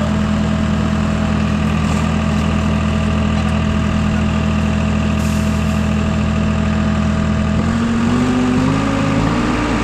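Engine of a work machine running at a steady speed, its pitch stepping up about eight seconds in as the throttle is opened.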